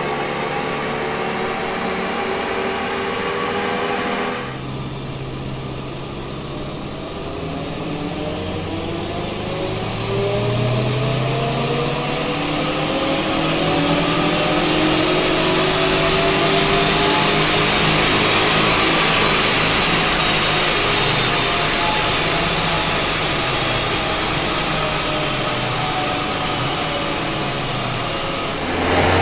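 2021 VW Golf GTI Mk8's turbocharged four-cylinder running at speed on a chassis dyno, with the whir of its tyres on the rollers. It is heard from outside at first, then from inside the cabin after about four seconds; the pitch climbs slowly, then sinks in the last part as the car coasts down in neutral.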